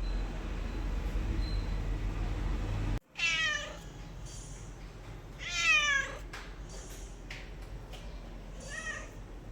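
A steady low rumble cuts off abruptly about three seconds in. Then a domestic cat meows: two loud, drawn-out meows falling in pitch, and a shorter, softer meow near the end.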